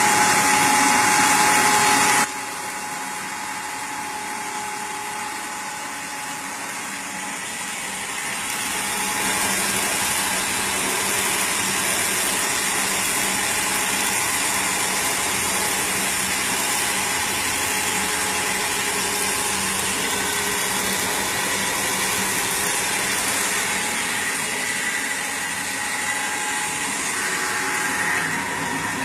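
Fish-feed pellet machine running with a steady mechanical noise. For the first two seconds it is louder, with a steady whine; it then drops abruptly and grows louder again about eight seconds in.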